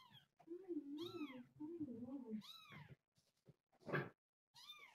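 Young kittens mewing, about four high calls that each rise and fall in pitch, with a lower wavering cat call underneath in the first half.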